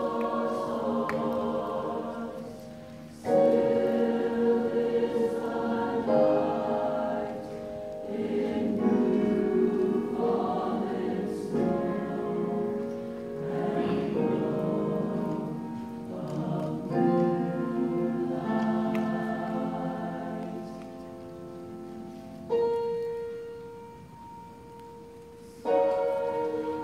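High school mixed-voice choir singing sustained chords in phrases with short breaks between them. About three-quarters in, a single held note sounds alone for a few seconds before the full choir comes back in.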